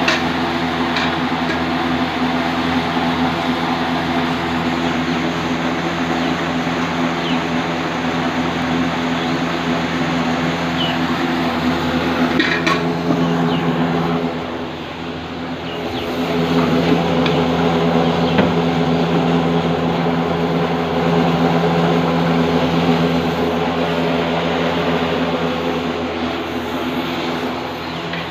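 Kishan Jyoti winnowing machine running: its fan motor hums steadily under a rush of air and grain pouring through the chute.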